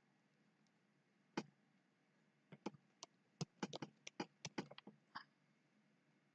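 Computer mouse buttons clicking: one click about a second in, then a quick irregular run of a dozen or so clicks over the next few seconds while painting with the pencil tool in an image editor.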